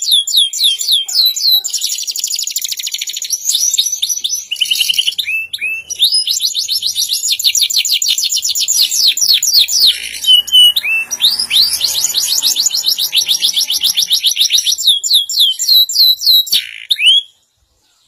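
Domestic canary singing a long song of rapid trills and fast runs of repeated down-sweeping whistled notes, stopping abruptly near the end.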